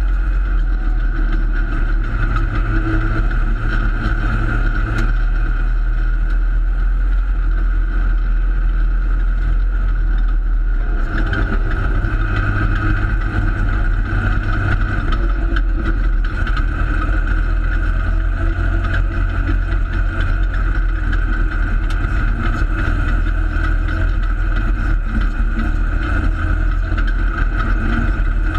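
Holden Torana open-sedan race car's engine running hard under racing load, heard loud from inside the cabin, easing briefly about ten seconds in before picking up again.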